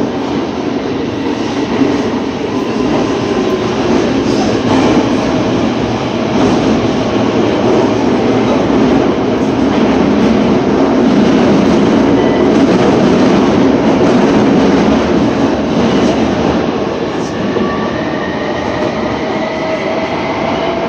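Tokyo Metro 07 series subway train running, heard from inside the car: a steady rumble of wheels on rail with clacks at the rail joints. A faint rising whine comes in near the end.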